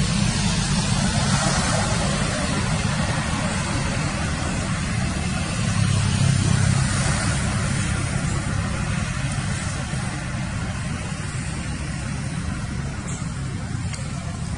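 Steady low engine rumble, like a motor vehicle idling nearby, swelling slightly about six seconds in, over an even background hiss.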